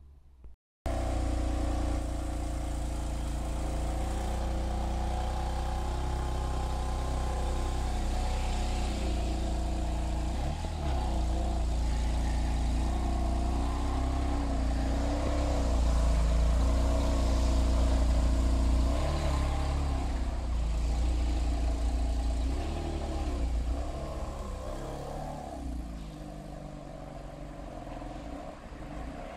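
BMW M4 Coupe's twin-turbo straight-six running at idle, with several brief throttle blips in which the revs rise and fall.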